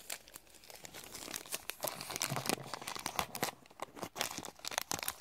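Crinkly plastic blind bag being handled and torn open by hand: a run of sharp crackles and rips, sparse at first and busier from about two seconds in.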